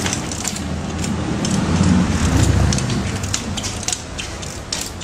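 Low rumble of a passing vehicle, swelling to its loudest about halfway through and then fading, under many sharp clicks and crackles.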